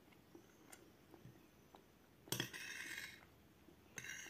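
Metal cutlery clinking against a plate and scraping up food, twice: a longer scrape about two seconds in, a shorter one near the end.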